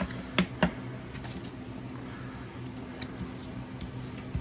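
Trading cards and plastic blister packaging handled on a table: three sharp clicks in the first second, then light rustling and small clicks.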